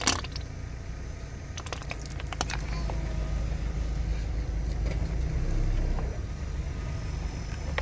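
Plastic bottle of pink liquid crushed under a car tyre, its contents spurting out in a short loud burst right at the start. A steady low rumble follows, with a few faint clicks about two seconds in.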